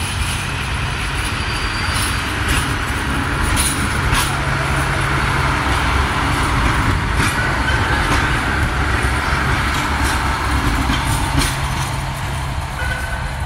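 Redhen diesel railcar set passing close by: a steady low engine and running rumble, with the wheels clicking now and then over the rail joints.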